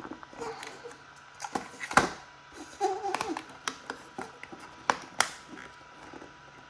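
Sharp plastic clicks and taps as the snap-fit clips of a DJI Mini 2 drone's plastic shell are pried apart, the loudest snap about two seconds in and two more near five seconds.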